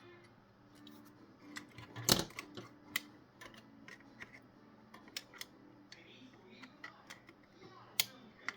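Scattered small clicks and taps of tweezers and fingers handling a car radio's LCD screen ribbon and its socket, with one sharper knock about two seconds in.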